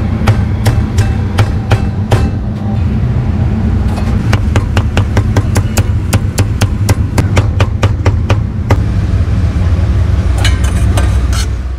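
Meat cleaver chopping roast duck and braised pork on a thick wooden chopping block: sharp chops, irregular at first, then a quick even run of strikes in the middle. A steady low rumble runs underneath.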